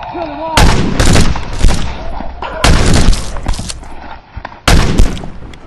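Gunfire in three loud volleys of rapid shots: one about a second in, one around the middle, and a shorter one near the end.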